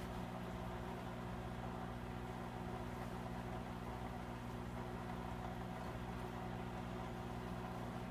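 Aquarium pump running with a steady, even hum, under the hiss of air bubbling up through the tank water.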